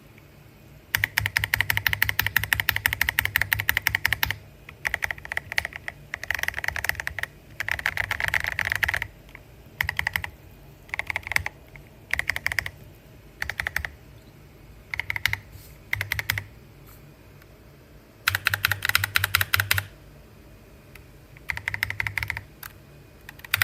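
Mechanical keyboard fitted with Gateron Yellow Pro 3.0 linear switches, factory-lubed, being typed on: fast runs of keystrokes alternate with short bursts of a few keys and brief pauses.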